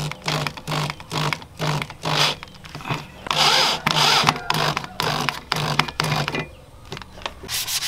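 Corded electric drill with a screwdriver bit driving screws into a wooden axe handle, run in short bursts of about two a second. It stops about six and a half seconds in.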